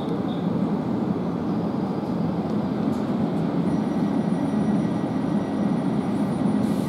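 Class 450 Desiro electric multiple unit standing at the platform with its doors open, its onboard equipment running with a steady hum. A faint high whine joins about four seconds in and stops just before the end.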